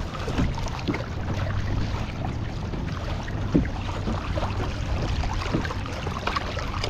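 Water sloshing and splashing against a kayak's hull as a snook held by a lip grip is towed alongside, over a steady low rumble, with one sharper splash or knock about halfway through.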